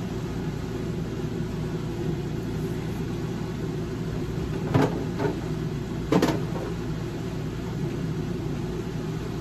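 A steady low mechanical hum, with two sharp knocks about five and six seconds in as food containers are handled in an open refrigerator.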